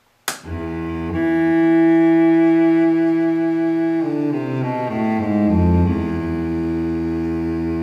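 Music: a short sharp hit, then long held low notes. About four seconds in the notes step downward in a short run, then settle on a held chord.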